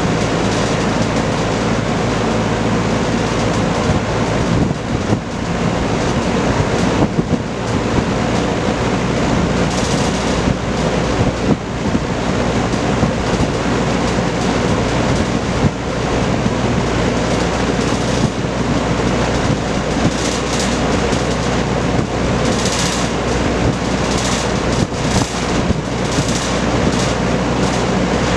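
Vintage Kenmore Roll-A-Matic 20-inch reversible box fan running, its four-blade propeller pushing a steady rush of air over a low motor hum.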